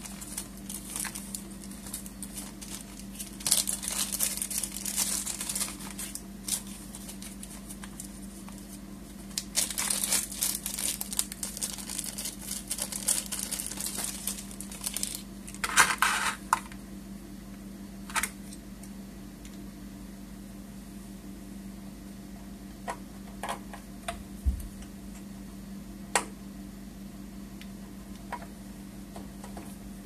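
Handling noise: two long bouts of rustling and crinkling, then scattered single small clicks, over a steady low hum.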